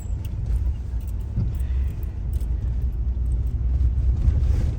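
Steady low rumble of a car driving along the road, heard from inside the cabin: engine and tyre noise.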